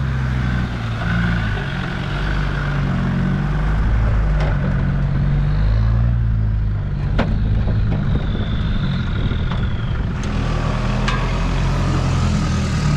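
Petrol 80 Series Land Cruiser's 1FZ-FE 4.5-litre straight-six running at low revs as the truck crawls slowly off-road, its pitch drifting gently up and down. A few sharp knocks punctuate it.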